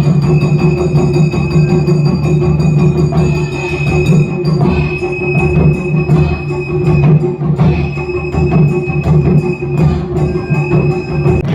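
Japanese taiko drum ensemble playing a fast, dense stream of drum strikes, with steady held tones sounding over the drumming that break off briefly twice.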